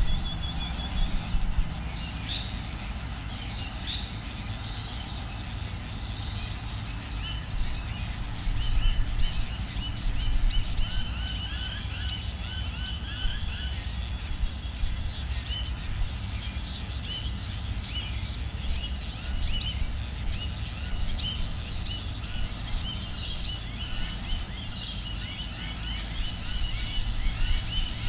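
Birds chirping and calling, many short high calls scattered through, over a steady low rumble. A thin steady whistle ends about a second in.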